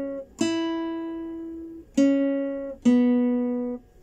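Classical guitar played one plucked note at a time in a slow falling line: the open first string (E), then the second string at the second fret (C-sharp), then the open second string (B), each note ringing until the next is plucked.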